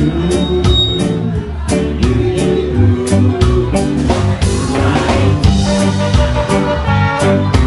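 Live ska band playing: electric guitar, bass and drums keep up a driving beat, and a horn section comes in with held notes a few seconds in.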